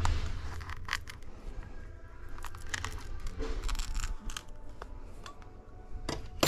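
Irregular small clicks, taps and scrapes of hand tools working on an iPhone 11 being taken apart for a battery replacement.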